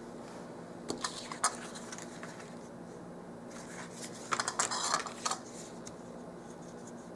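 Light clicks and taps from small craft tools and cardstock being handled on a tabletop, with a brief cluster of scratchy ticks about four to five seconds in while tacky glue is dabbed onto a paper tab, over a faint steady hum.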